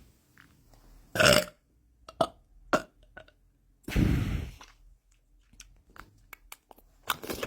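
A person burping: a short, loud burp about a second in and a longer burp about four seconds in, with small clicks between.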